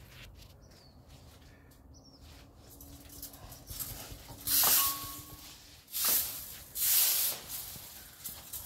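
Rake scraping across paving, dragging pruned leaves and twigs: three loud strokes in the second half.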